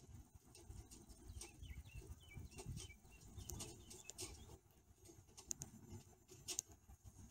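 Faint outdoor ambience: a small bird chirps several times between about one and a half and three seconds in, over a low uneven rumble, with a few short soft clicks later on.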